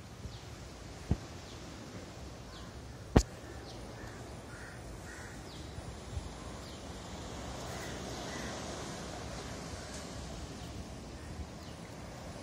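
Birds calling in the trees: thin, high falling chirps repeat throughout, with a short series of harsher, caw-like calls about four seconds in and again near eight seconds, over a steady background hiss. One sharp knock about three seconds in.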